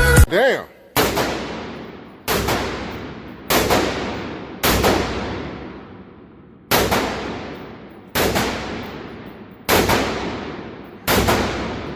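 AR-15 rifle with a SureFire MB556K muzzle brake fired eight single shots at a slow, steady pace, one about every second and a half. Each shot has a long fading echo.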